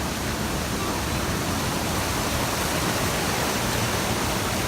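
Steady rush of flowing water, an even hiss that doesn't change.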